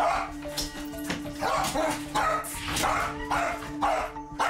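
Welsh Corgi barking over and over at a closed door, about two barks a second, set off by its owner going into another room. This is the excited, nonstop barking the owner says she cannot stop or explain.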